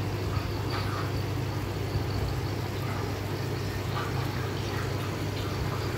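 Steady low hum with water bubbling, as from an aquarium air pump pushing air through tubing into the tank.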